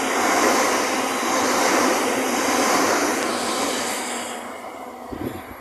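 Class 376 Electrostar electric multiple unit running past close alongside the platform: a steady rush of wheel and motor noise that dies away over the last two seconds.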